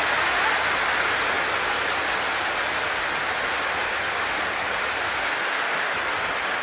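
Steady heavy rain, an even unbroken hiss with no letup.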